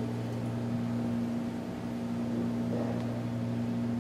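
Steady low room hum, an even drone with no clear knocks or clicks.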